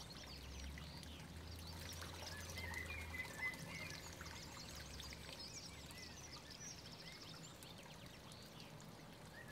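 Faint garden ambience: a small pond fountain bubbling and trickling, with many short bird chirps.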